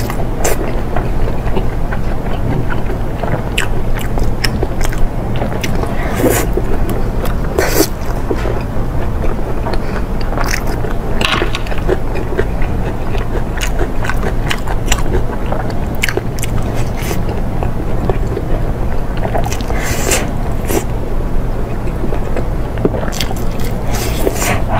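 Close-miked chewing and biting of food: irregular wet clicks and smacks from the mouth, over a steady low hum.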